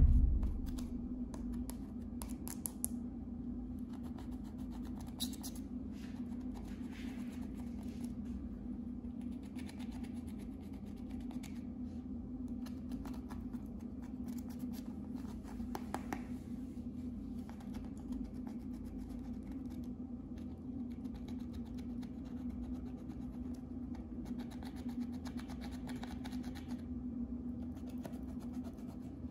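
Small battery-powered handheld tool running with a steady motor hum while its tip grinds into pressed eyeshadow in a plastic palette, with gritty scratching and crumbling of the powder throughout.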